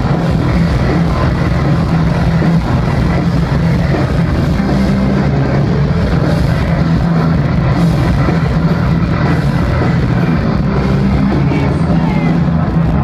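Live rock band playing loud and steady with guitar and drums, heard from within the crowd through a phone's microphone.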